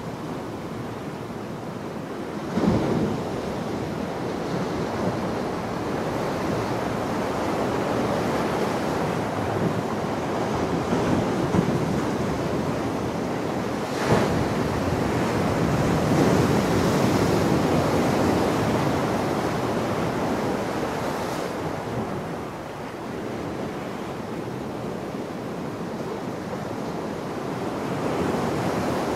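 Ocean surf breaking and washing over shoreline rocks: a continuous rush that swells and ebbs, with a sudden louder hit about three seconds in and another about halfway through.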